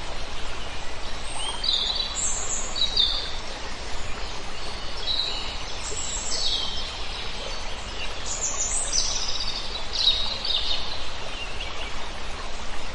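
Small birds chirping in short, high calls, some sliding in pitch, scattered every second or so over a steady background hiss.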